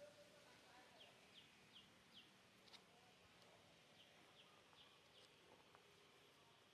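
Faint bird calls: short, high, falling chirps in two runs of four, about two and a half a second.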